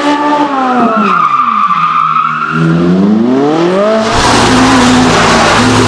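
Ferrari drift car's engine falling in revs and climbing again as the car slides, with tyres squealing. From about four seconds in, the engine is held at high revs under a loud rush of tyre noise.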